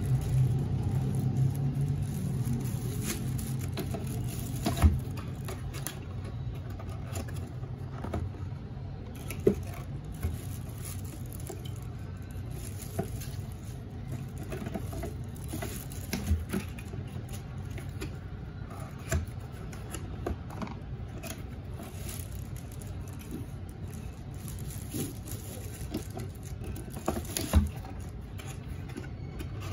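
Packing by hand: a clear plastic bag rustling and small cardboard boxes being handled, with scattered light knocks and taps as items and flaps are set down. A steady low rumble runs underneath.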